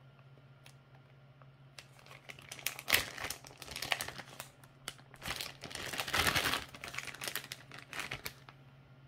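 Clear plastic wax-melt bag crinkling as it is handled, in irregular bursts starting about two seconds in and loudest near the middle.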